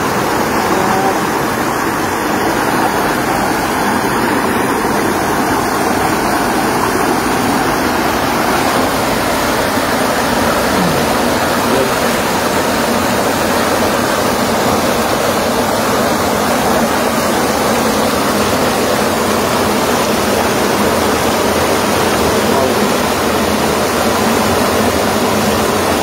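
Steady rushing of water that keeps an even level and never changes.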